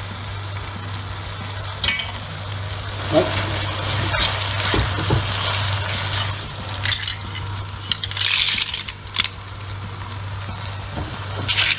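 Spaghetti with cherry tomatoes and shellfish sizzling in a nonstick frying pan while being stirred and tossed with a utensil, with scattered clicks and scrapes against the pan. A louder hiss of sizzling comes about eight seconds in.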